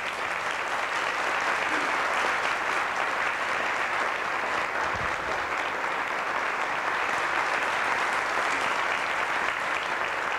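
An audience applauding, a steady round of many hands clapping.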